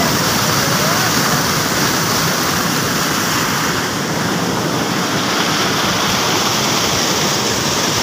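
Steady roar of rushing water from a muddy river churning white through rapids below a waterfall.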